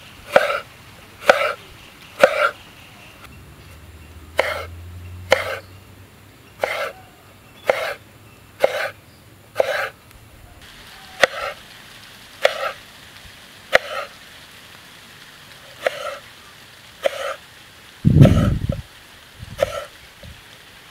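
Kitchen knife slicing through brinjal onto a wooden board, one crisp cut about every second, with a heavier thump near the end.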